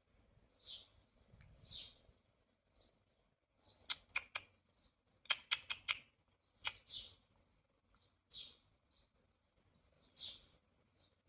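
Short, faint bird chirps every second or two, with two quick clusters of sharp clicks around the middle.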